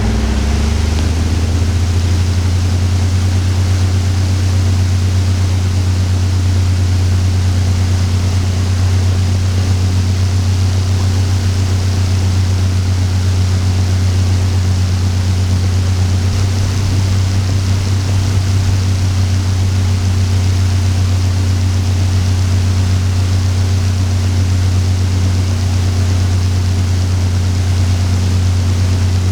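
Electric fan running steadily: a constant low motor hum under an even rush of air from the blades.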